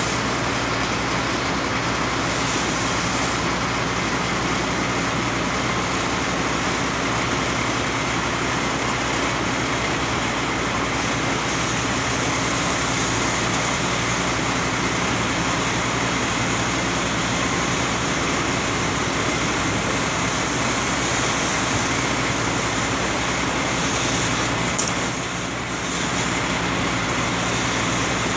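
An engine running steadily at idle, a low drone under a steady hiss, with city street noise; it dips briefly near the end.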